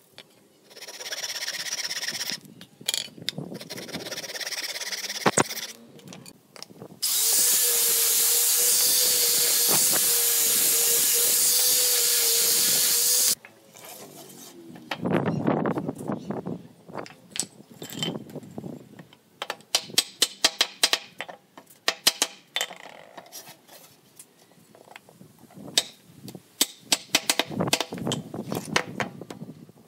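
An electric power tool runs steadily for about six seconds near the middle. Before it come scraping and rubbing noises, and after it many sharp knocks and taps of wooden boards being handled and set down on a concrete floor.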